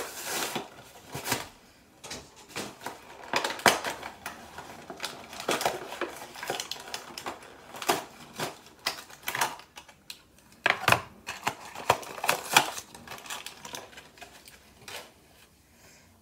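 Plastic blister packaging of a Bakugan toy being opened and handled by hand: irregular crinkles and clicks, with several sharper snaps of the plastic.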